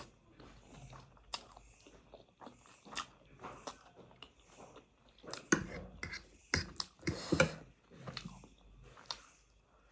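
A person chewing and eating close to the microphone: scattered wet mouth clicks and smacks, with a denser, louder run about five and a half to seven and a half seconds in.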